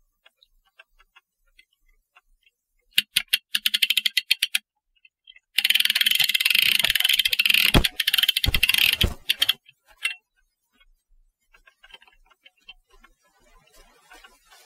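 Clock mainspring winder's ratchet clicking rapidly as its crank is turned, in two runs: a short one about three seconds in, then a longer, louder one with a few dull knocks near its end.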